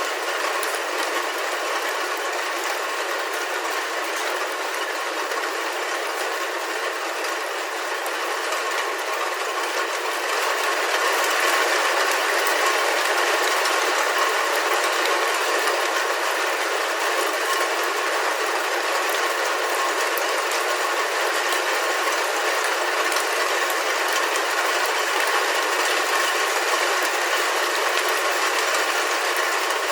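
Rain falling on a roof, heard from inside: a dense, steady patter of countless drops that grows a little louder about a third of the way in.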